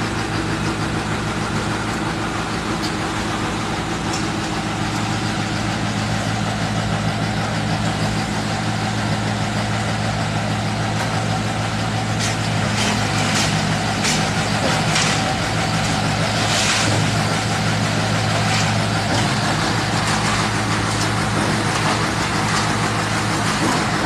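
Concrete mixer pump's engine running steadily under load. Partway through comes a run of short, noisy strokes, from the pumping machinery.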